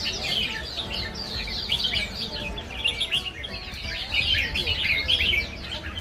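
Many caged songbirds singing and chirping at once, a dense overlapping chorus of quick high twittering notes mixed with some lower whistled notes.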